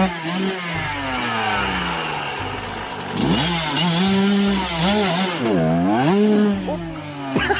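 Yamaha YZ125 dirt bike's two-stroke single-cylinder engine revving, its pitch climbing and falling again and again, with a deep drop and climb back up about six seconds in.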